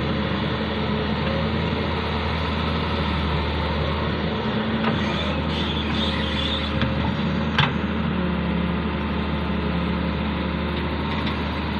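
Doosan DX140W wheeled excavator's diesel engine running steadily while it digs sand, with a single sharp knock about two-thirds of the way through.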